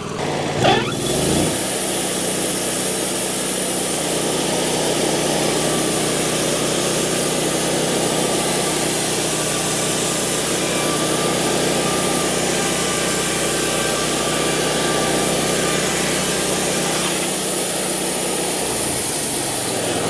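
Wood-Mizer LT40 bandsaw sawmill ripping along the edge of a pine slab stood on end. The engine revs up about a second in, then the band runs steadily through the wood with a high, even hiss of sawing over the engine's hum.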